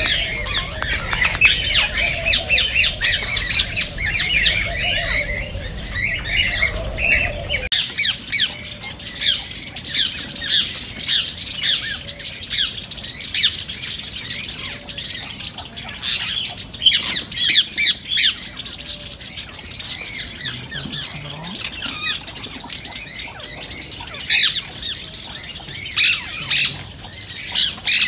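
Indian ringneck (rose-ringed) parakeets calling as a flock: many short, shrill squawks overlapping one another without a break. A low rumble lies under the calls for the first eight seconds or so, then cuts off suddenly.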